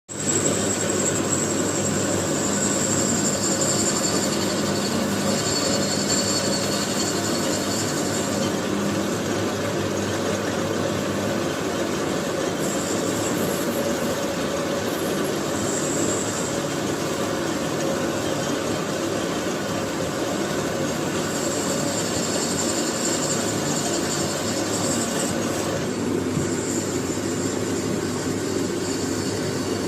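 Metal lathe running steadily while cutting a stub sleeve: a constant machine hum with a high-pitched whine from the cut that comes and goes.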